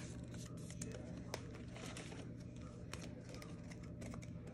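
Faint handling of trading cards and pack wrappers: soft crinkling with a few light clicks, over a steady low hum.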